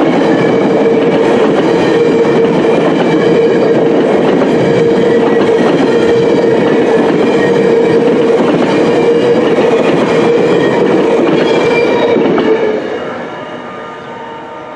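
Stainless-steel passenger cars of a VIA Rail train rolling past, steel wheels on the rails making a loud steady noise with a steady tone running through it. The sound drops off sharply near the end as the last car goes by.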